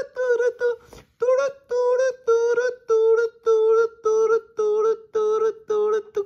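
Background music: a high, synthetic-sounding voice chanting short repeated notes on nearly one pitch, about two or three a second, with a brief break about a second in.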